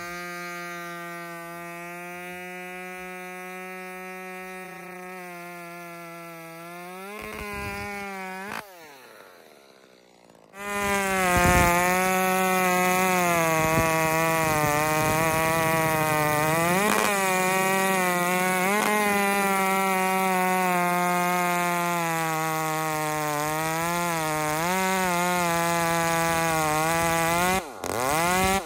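Modified Echo 2511 top-handle chainsaw's small two-stroke engine running at high revs with a steady, high buzzing note. The pitch dips and wavers about seven seconds in and the sound fades low near ten seconds, then comes back loud and holds steady for the rest.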